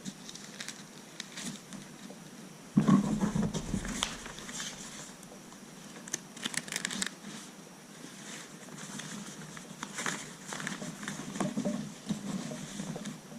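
Thin paper pages of a Bible being leafed through and handled, with rustling, crinkling and small clicks, and a louder thump about three seconds in.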